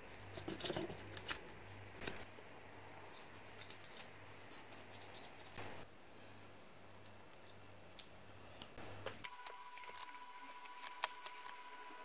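Faint clicks and rustles of hands handling and fitting together small plastic wiring connectors, over a faint low hum. About nine seconds in the hum stops and a faint steady high tone takes its place.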